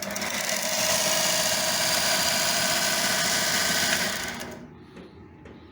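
Von Haus 1-inch mini belt sander switched on, its motor and belt running up to speed and holding steady for about three seconds, then switched off and spinning down.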